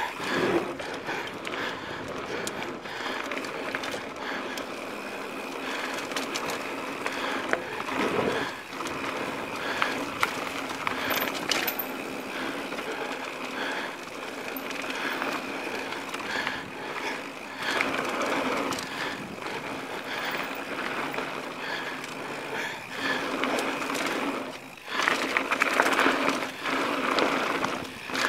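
Mountain bike ridden fast on a dirt singletrack: steady tyre and rushing noise, with rattles and knocks from the bike as it bounces over bumps, louder in several rough stretches, including a clatter across a wooden plank bridge at the start.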